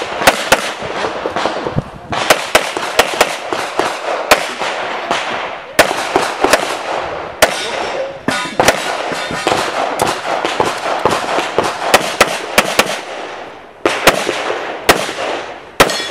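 Rapid pistol fire from a single competitor: quick strings of shots, many in fast pairs, broken by short pauses between strings.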